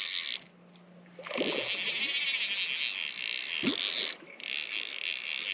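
Fly reel being cranked to retrieve line on a hooked trout, its click ratchet making a fast high rasp in spells, dropping out for about a second near the start and again briefly near four seconds.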